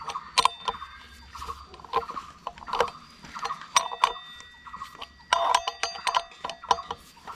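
A steel tube spanner and tommy bar clink and tap irregularly against the bolts and steel brake disc of a scooter's front wheel as the 12 mm disc bolts are tightened. Some strikes leave a brief metallic ring, and the clinks come thickest about five and a half seconds in.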